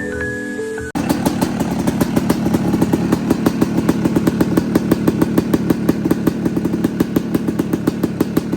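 Music ends about a second in. Then a Yamaha YZ250 two-stroke single-cylinder dirt bike engine runs steadily with a fast, even pulse, freshly rebuilt with a new cylinder, OEM top end and a cleared-out exhaust.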